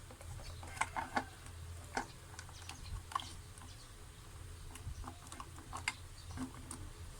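Scattered light clicks and taps of small 3D-printed plastic enclosure parts being handled and fitted by hand, a few sharper clicks about a second in, over a steady low hum.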